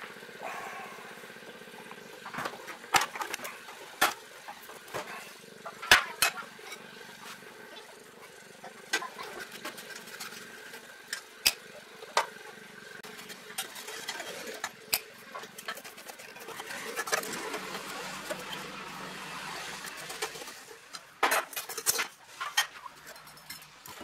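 Scattered sharp metal clicks and clinks as the headlight trim ring and retaining ring are worked loose and the sealed-beam headlamp is lifted out of a 1940s Chevrolet's headlight bucket, over a faint steady hum.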